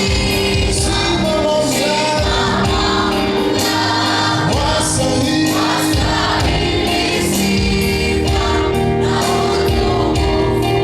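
A choir singing a gospel song with instrumental backing and a steady beat.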